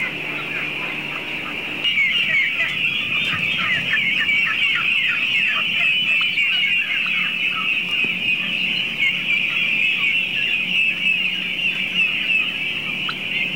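A flock of domestic turkeys calling together: a dense, constant chorus of many short, high, downward-sliding chirps, louder from about two seconds in.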